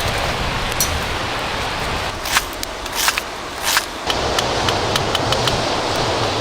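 Steady rush of a river with scattered sharp ticks, and three short scraping strokes between about two and four seconds in.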